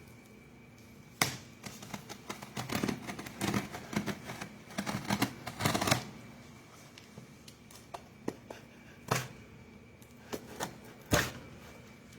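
Hands handling and opening a shipping package: a run of quick clicks, scrapes and rustles of cardboard and packaging, then a few separate sharp knocks.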